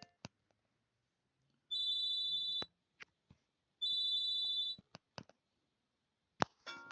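Alcatel OT-217D mobile phone sounding a steady, high-pitched electronic beep twice, each about a second long, with short clicks before, between and after. A new ringtone melody starts just before the end.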